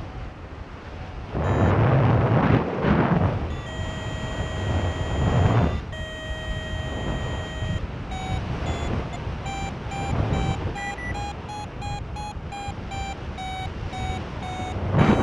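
Paragliding variometer sounding: two long steady tones about 4 seconds in, then quick repeated beeps from about 8 seconds in, their pitch shifting slightly, the beeping a vario gives when the glider is climbing. Wind buffets the microphone in loud gusts, strongest in the first half.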